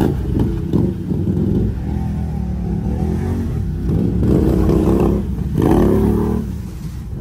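Can-Am ATV engine revving in surges as its tyres spin and churn through deep mud and water, swelling loudest about four and six seconds in.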